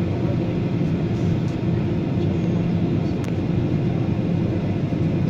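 Airliner cabin noise on approach to landing: a steady low drone of the engines and rushing air, heard from inside the cabin.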